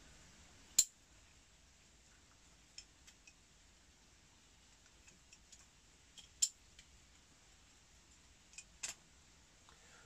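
Scattered short, sharp clicks and snips of small hand tools and wire being handled while a crimp-on connector is fitted to an earth wire; the loudest click comes about a second in and another about six and a half seconds in.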